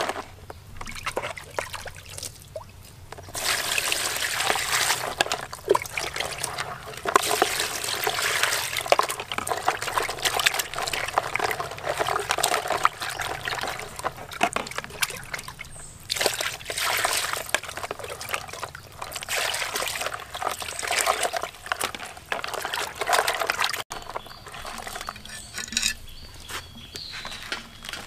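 Water running and splashing in stretches of several seconds, stopping and starting again about three times, with light clicks and knocks in the pauses.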